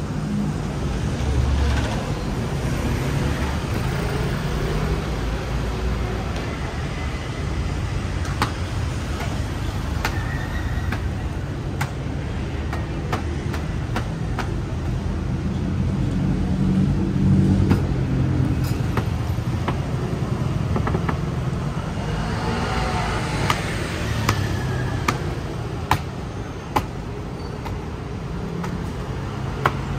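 Steady city street traffic: a continuous low rumble of passing cars and motorbikes, with sharp clicks now and then and one vehicle changing pitch as it passes about three-quarters of the way in.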